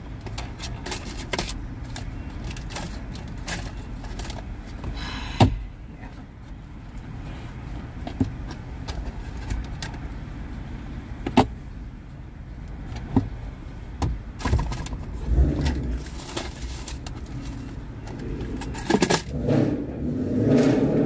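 Rummaging through small objects in a car's centre console and door pocket: scattered clicks, knocks and metallic jingling, with a rustle near the end, over a steady low rumble.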